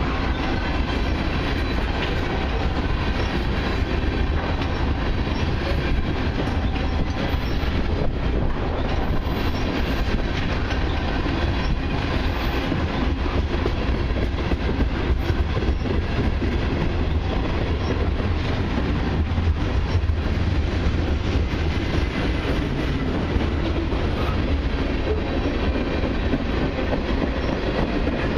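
Freight cars of a long CN mixed freight rolling past: a steady rumble of steel wheels on the rails with clickety-clack over the rail joints.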